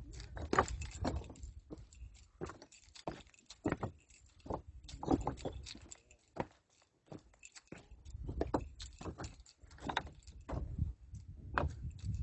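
Footsteps on stony ground: irregular crunches and knocks, about one or two a second, with a short pause partway through.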